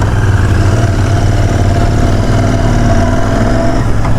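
Royal Enfield 650 parallel-twin motorcycle engine running steadily while the bike is ridden, a loud, even low drone.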